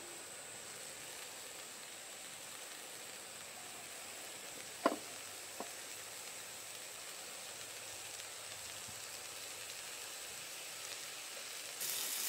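Beef-and-enoki mushroom rolls sizzling in oil in a cast-iron pan, a steady frying hiss. About five seconds in come two sharp clicks as wooden chopsticks turn the rolls, and near the end the hiss gets louder.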